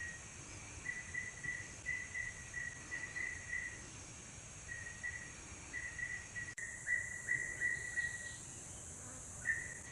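Faint forest insect ambience: an insect chirping in repeated runs of short, even pulses at one steady pitch, over a continuous high-pitched insect drone.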